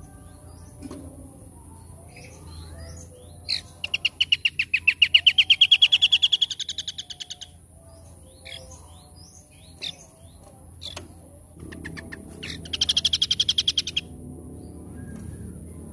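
Small songbirds calling: scattered short chirps, then a loud, fast trill of about ten notes a second that rises in pitch and fades out over three seconds. A second, shorter trill comes near the end.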